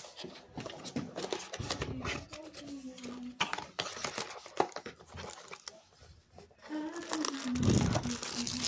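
Cardboard phone box being handled, with paper flaps and the inner tray rubbing and clicking against each other. Near the end, the plastic wrap around the phone crinkles loudly as it is lifted out.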